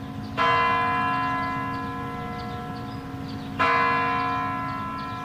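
The big bell of the Kremlin's Spasskaya Tower clock striking the hour: two heavy strokes about three seconds apart, each ringing on and slowly dying away.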